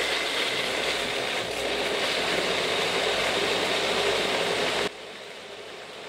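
Personal bullet-style blender running, its motor and blade churning a thick ice cream and Oreo shake. About five seconds in the sound drops suddenly to a quieter steady running.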